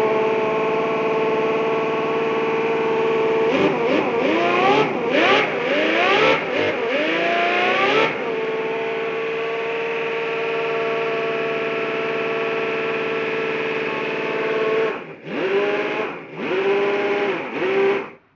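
A 47cc Chuanqi V12 model engine runs steadily, then is revved in a string of quick throttle blips from about 4 to 8 seconds in before settling back to a steady run. Near the end its sound drops sharply twice and picks back up, then cuts off suddenly.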